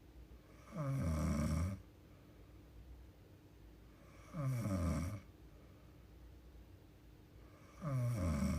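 A young woman snoring in her sleep: three snores about three and a half seconds apart, each lasting about a second and falling in pitch.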